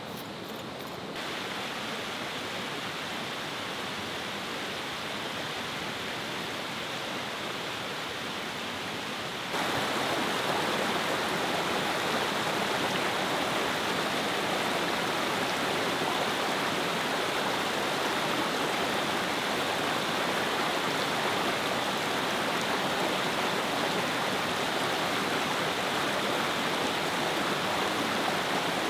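Rushing water of a rocky creek spilling over a small cascade, a steady rush that gets louder about ten seconds in.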